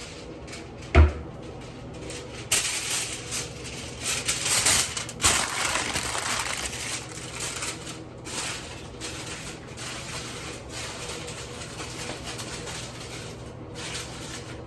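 Meat sizzling in a frying pan, an uneven hiss that sets in a couple of seconds in and slowly eases, with a single dull thump about a second in.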